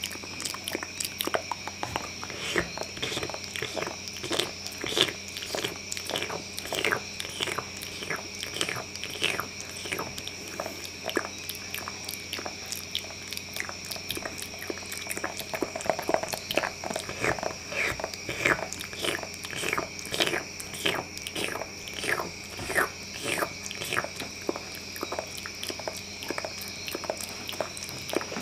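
Close-miked ASMR mouth sounds: a continuous run of wet clicks, smacks and short falling squelches, several a second, like nibbling and chewing.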